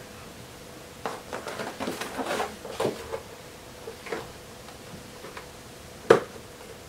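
Handling noises from a cardboard box being opened: a run of rustles, scrapes and taps over the first few seconds, a few scattered taps after, and one sharp click about six seconds in, the loudest sound.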